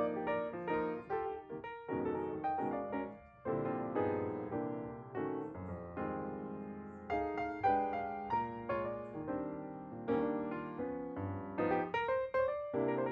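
Background piano music: a melody of struck notes over chords, played at a moderate, steady pace.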